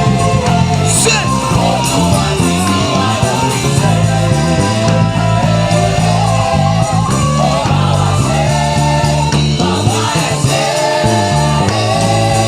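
Loud rap backing beat with a heavy repeating bass line and a melody over it.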